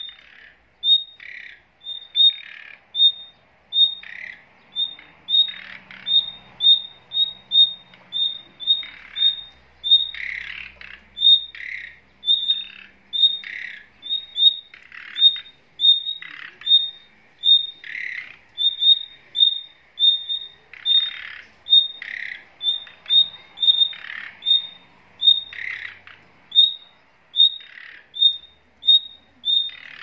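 Small cage birds calling constantly. A short high chirp repeats about twice a second, mixed with harsher, lower squawking calls about once a second.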